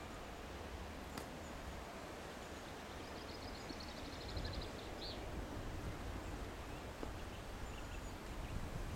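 Distant three-cylinder Peppercorn A1 steam locomotive 60163 Tornado working hard as it starts its train from a standstill up an incline, heard as a low rumble that grows louder during the second half. A small bird trills briefly a few seconds in.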